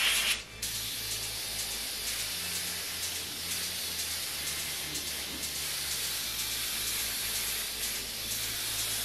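Gravity-feed airbrush spraying a steady hiss of compressed air and paint, after a short louder burst at the very start.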